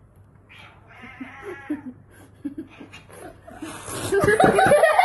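Person laughing: soft chuckles, then a much louder, rapid run of laughter from about four seconds in.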